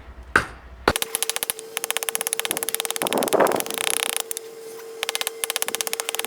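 A small hatchet chops twice into green oak, then from about a second in comes a rapid, even run of clicks, well over ten a second and broken by short gaps, over a steady hum.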